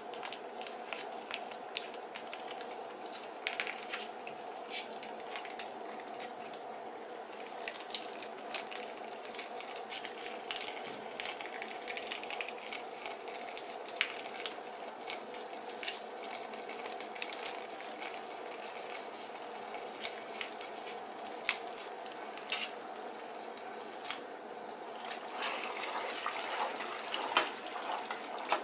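Cheese sauce squeezed from a foil pouch into a pot of cooked pasta shells: the pouch crinkles, and a plastic slotted spoon clicks against the pot. Near the end the sound turns into thicker squelching as the shells are stirred into the sauce. A steady hum runs underneath.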